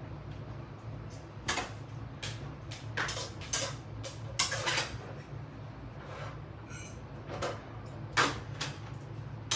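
Kitchen clatter: a string of sharp knocks and clinks of dishes, utensils and cupboard doors on a tiled counter, the loudest about four and a half and eight seconds in, over a steady low hum.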